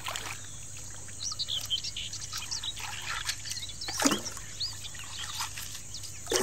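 Small birds chirping repeatedly over the faint slosh of water in a wooden gold pan being swirled in a shallow river, with a sharp splash about four seconds in.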